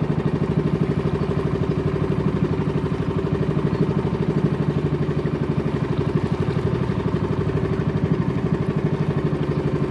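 Small fishing boat's engine running steadily under way, a fast even throb.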